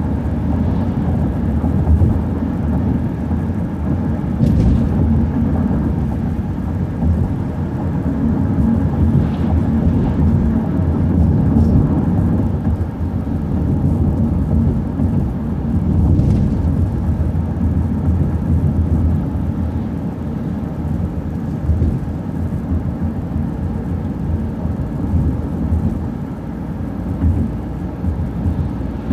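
City transit bus driving at steady speed, heard from inside: a continuous low rumble of engine and road noise.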